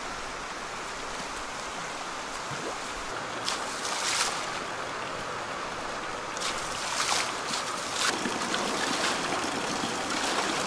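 Water sloshing and splashing as workers wade through a shallow eel pond dragging a seine net, over a steady rush of water. The splashes come in clusters about four seconds in and again around seven to eight seconds.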